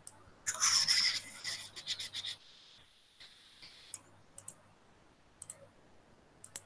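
Computer mouse scrubbed back and forth on the desk for about two seconds, a dense scratchy rubbing as it drags the digital whiteboard eraser, then several sharp mouse clicks spaced out over the next few seconds.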